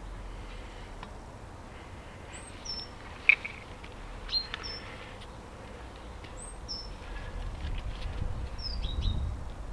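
Small birds chirping: short, high, falling notes, mostly in pairs, a few times across the stretch. A sharp click about three seconds in is the loudest sound, and a low rumble builds near the end.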